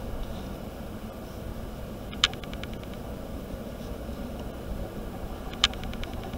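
Steady low background rumble of room noise, like a fan running, with two sharp clicks about three and a half seconds apart, each trailed by a quick run of fainter ticks.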